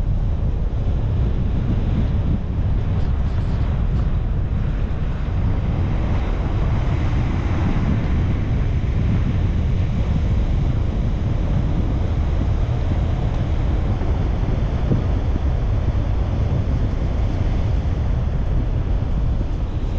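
Steady low rumble and hiss of a car on the move: road and wind noise.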